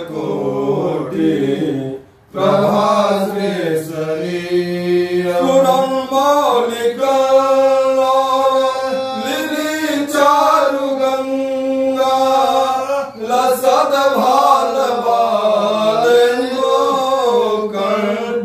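A man chanting mantras for a Rudrabhishek in a sung, melodic style, holding long notes, with a short breath pause about two seconds in.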